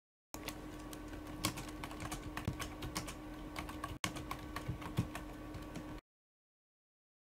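Typing on a computer keyboard, quick uneven key clicks over a faint steady hum, as an email is typed out; the clicking stops abruptly about six seconds in.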